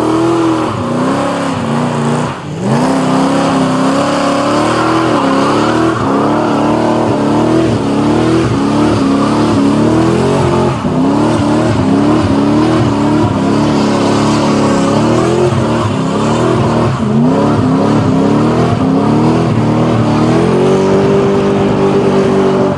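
V8 muscle car doing a burnout: the engine is held at high revs, its pitch rising and falling as the throttle is worked, over a steady hiss of spinning, smoking tyres. It drops out briefly about two seconds in, then revs back up, and holds a steady high note near the end.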